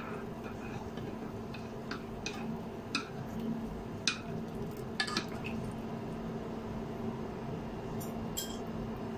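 A ladle clinking and knocking against a pot of simmering soup in about ten short, light strikes, most of them in the first few seconds and two more near the end, over a steady low hum.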